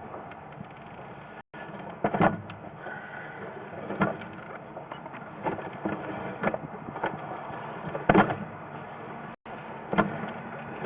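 Steady mechanical running noise with a low hum, broken by irregular sharp knocks and clunks about every couple of seconds, and two brief cuts to silence.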